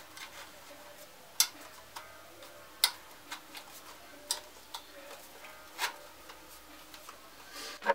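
Sharp clicks and knocks, the loudest about every second and a half, with smaller ticks and light handling noise between them, as a car head unit is turned over in the hands.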